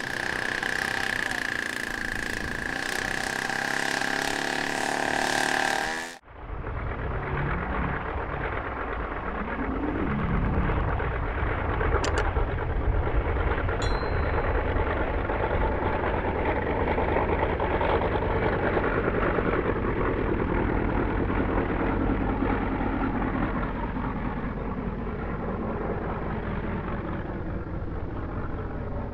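Moki radial engine of a giant-scale RC Focke-Wulf Fw 190 running, its note rising about eight to ten seconds in as it goes to power for the takeoff run, then steady at high power and easing off slightly near the end as the plane climbs away. Before that, a different steady sound with a constant high tone cuts off abruptly about six seconds in.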